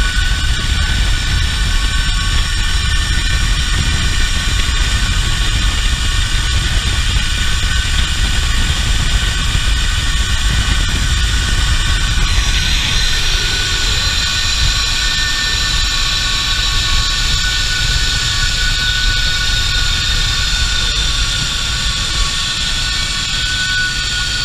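Zip line trolley pulleys running fast along the steel cable, a steady high whine of several tones over heavy wind rushing on the microphone. The whine shifts in pitch about halfway through, and the sound eases a little near the end.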